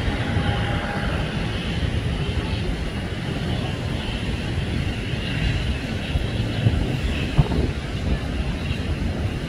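Airbus A320neo jet engines running, a steady rumble with a hiss above it.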